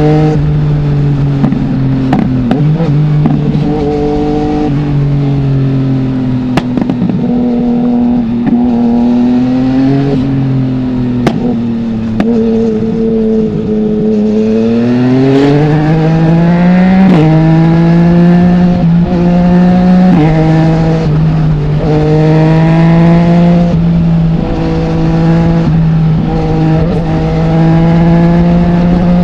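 The 2020 Yamaha MT-09's 847 cc inline-three engine running through an Akrapovic full exhaust with no dB killer, heard from the rider's helmet. The revs rise, and the pitch steps down several times as the rider changes gear. The revs fall away and climb again midway, with a couple of sharp cracks from the exhaust.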